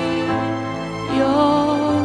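Slow worship song: sustained accompaniment chords, with a woman's voice coming in about a second in on a held note with vibrato.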